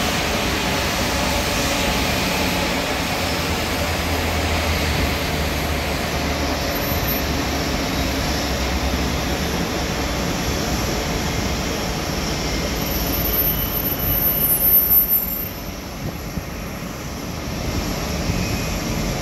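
Steady jet aircraft noise on an airport apron: an even rushing drone over a low rumble. It swells about fourteen seconds in, drops off briefly, then builds again near the end.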